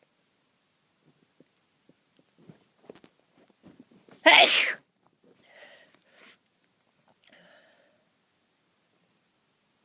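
A person's loud sneeze about four seconds in, after a build-up of small catching breaths. Two softer breathy sounds follow.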